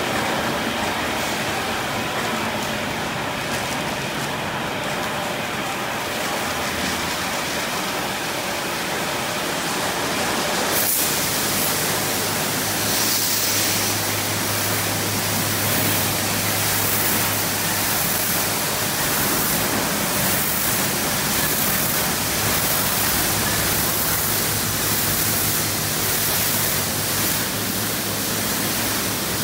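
Automatic car wash tunnel equipment running: cloth brushes and curtains turning with water spraying, a steady wash of noise. About eleven seconds in, the spray gets louder and hissier over a low steady hum.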